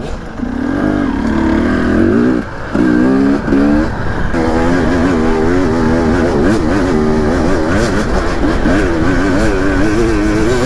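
Dirt bike engine heard from the rider's own bike, revving up through the gears with short dips at the shifts about two and a half and four seconds in, then the throttle rising and falling steadily as it rides along the track.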